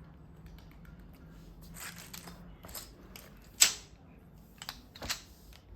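Scattered sharp plastic clicks and taps from a Logitech wireless keyboard and its parts being handled, with one loud click about halfway through.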